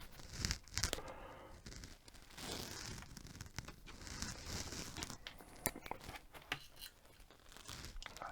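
Crinkling, rustling handling noise at a workbench, with scattered sharp clicks and taps.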